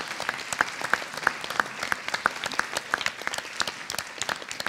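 Audience applauding: many hands clapping together, a dense, steady run of sharp claps.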